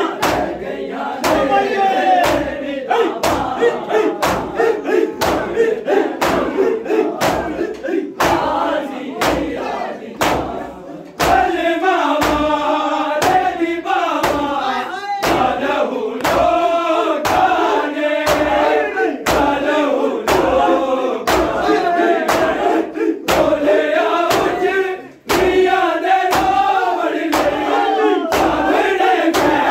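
A crowd of men chanting a mourning noha together while doing matam, striking their chests in unison. The blows land as a steady beat of sharp slaps, a little more than one a second, under the chant.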